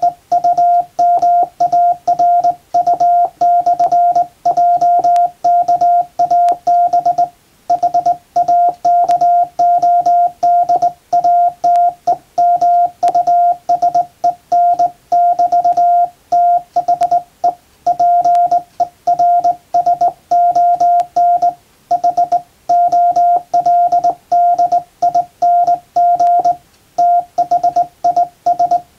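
Hand-keyed Morse code sent on a JRC KY-3A straight key, heard as a steady beep that breaks into short dots and longer dashes, with brief pauses between words. The message is an English-language telegram.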